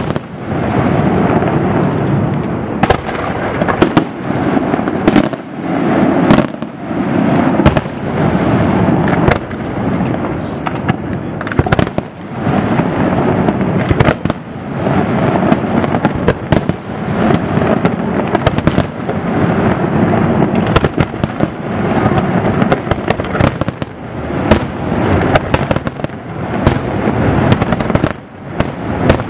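Aerial firework shells bursting in a rapid, unbroken barrage: overlapping booms merge into a continuous rumble, with many sharp reports on top.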